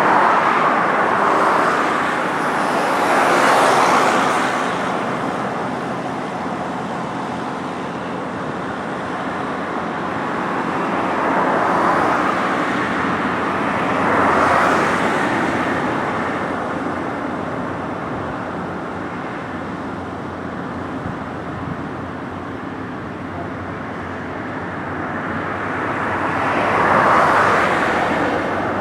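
Road traffic passing on a bridge: a steady wash of tyre and engine noise, with vehicles swelling past five times, three of them close together near the start and middle and one near the end.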